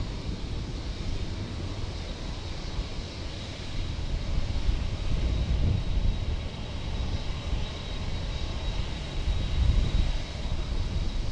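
Boeing 747-8F freighter's jet engines running at taxi power: a steady low rumble with a faint high whine on top, swelling a little a couple of times.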